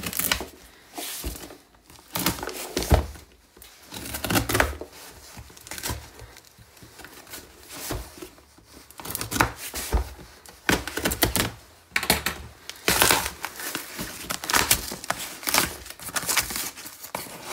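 Package being opened and unpacked by hand: tearing, crinkling and rustling of the packaging, with scattered clicks and knocks as it is handled.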